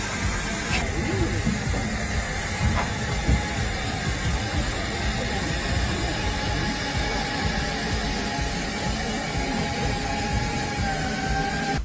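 Steam locomotive hissing steadily, with a faint held tone over a low rumble.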